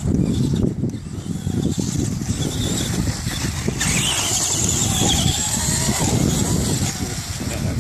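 Electric motor and drivetrain of a Traxxas Stampede 4x4 brushed RC truck whining as it drives over sand, loudest from about four to seven seconds in, over a steady low rumble.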